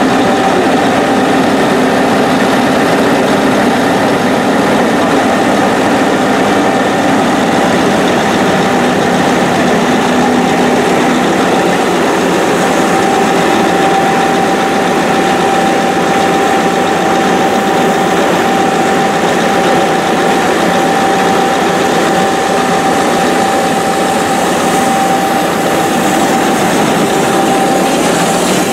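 Diesel engine of a Godwin CD500M Dri-Prime mining dewatering pump set running at a steady speed, with a steady whine over the engine noise.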